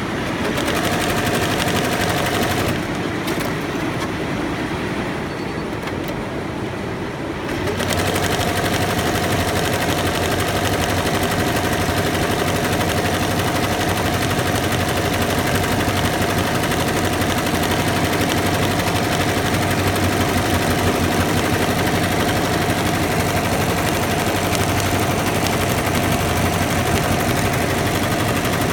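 Multi-needle commercial embroidery machine stitching at speed: a steady rapid needle clatter with a constant whine. About three seconds in the whine stops and the sound thins and drops a little for about five seconds, then the full steady stitching resumes.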